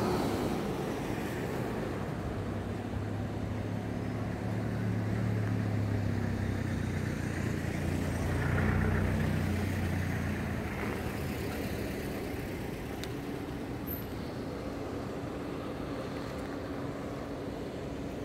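City street traffic: a steady wash of road noise, with a vehicle's low engine hum building to its loudest about nine seconds in as it passes, then fading away.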